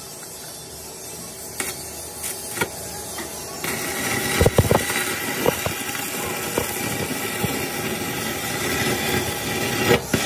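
Stick (arc) welding on a steel truck wheel rim. The arc strikes about four seconds in and then runs with a steady crackling hiss, with a burst of loud pops just after it starts and scattered pops after that.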